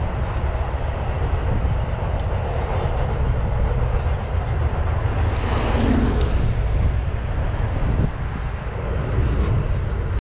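A car crossing the road bridge, its tyre and engine noise swelling to a peak about six seconds in and then fading, over a steady low rumble. The sound cuts off suddenly near the end.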